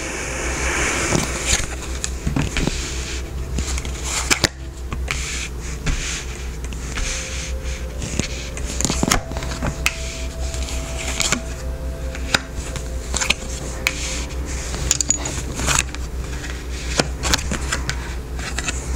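Tarot cards being shuffled and handled: irregular soft clicks, slaps and scrapes of cards, over a low steady hum.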